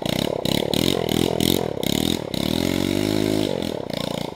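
Coolster 110 pit bike's small single-cylinder four-stroke engine revving hard, the throttle blipped up and down in quick succession, then held at high revs for a second or so before going choppy again as the bike pulls off through mud.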